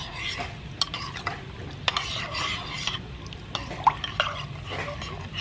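Metal ladle stirring a thin, watery sauce in a ceramic pot: liquid swishing, with several sharp clinks of the ladle against the pot, the loudest about four seconds in.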